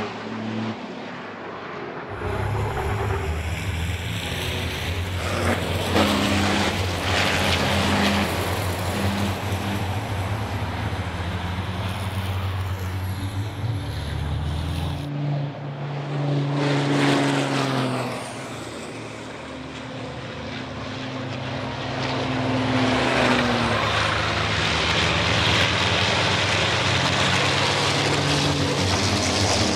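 Racing trucks' big turbo-diesel engines running hard as they pass on track, the engine note stepping and shifting with throttle and gear changes. The sound changes abruptly twice as the feed switches between trackside microphones.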